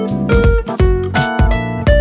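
Background music: plucked guitar over a steady drum beat.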